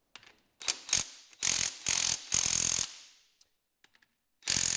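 DeWalt cordless half-inch impact wrench hammering on a tight bolt of an old tractor's transmission housing. It goes in a couple of quick blips, then three short bursts in a row, and another burst near the end, with the bolt not breaking loose.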